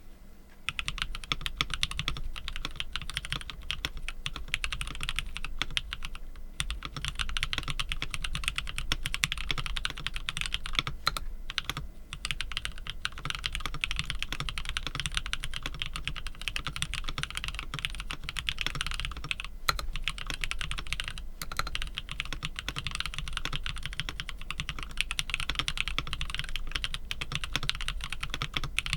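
Fast, continuous typing on a HolySwitch 65 mechanical keyboard with Everglide Aqua King linear switches and Artifact Shield keycaps, starting about half a second in, with a few brief pauses.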